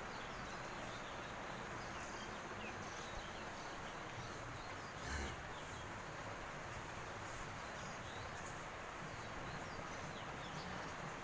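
Steady background noise of a cowshed with faint bird chirps, and one short low thump about five seconds in.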